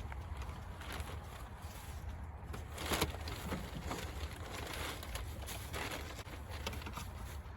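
Faint rustling and a few light knocks over a low steady rumble, with a brief louder rustle about three seconds in.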